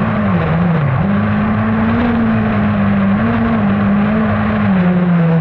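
Kart cross buggy's engine heard from the cockpit while racing on dirt. Its pitch rises and falls with the throttle, dipping about a second in, holding fairly steady, then easing lower near the end.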